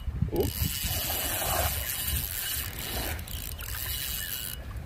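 Small waves washing onto a sandy beach: a steady hiss of water over a low, fluttering rumble.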